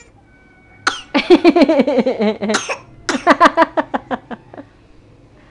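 A little girl shouting angrily in two runs of short, rapid, harsh bursts, straining so hard that the shouts turn cough-like. The second run trails off.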